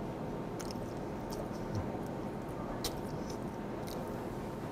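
Close-up chewing of soft braised mackerel, with scattered wet mouth clicks and smacks over a steady faint hum.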